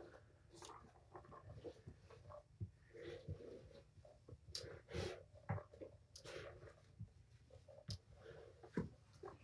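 Faint, scattered knocks and rustling as a carpeted cat tree is lifted and handled, with a few sharper knocks along the way.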